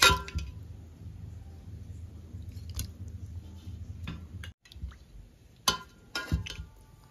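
Steel ladle clinking against a steel pot of chicken curry: a sharp, ringing clink at the start and two more close together near the end, with quieter stirring and handling sounds between.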